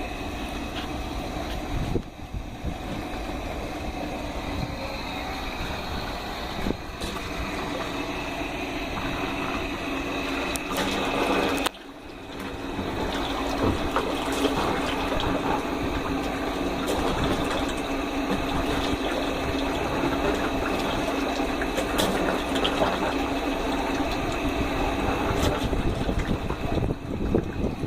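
Air-conditioner compressor, rigged as an air compressor to pump a well, running with a steady hum while water gushes and splashes out. The sound briefly dips near the middle, then carries on.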